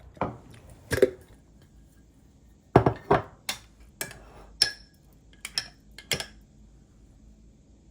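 Dishes and cutlery clinking and knocking: about ten separate clinks and knocks, a few of them ringing briefly, the loudest pair about three seconds in.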